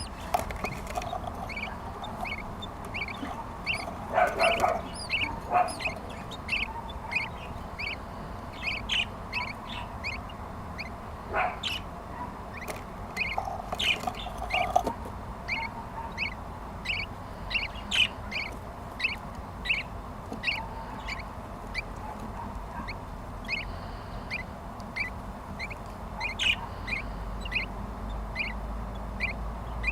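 Budgerigars chirping: a steady series of short, high chirps, about one and a half a second, with a few louder calls over them now and then.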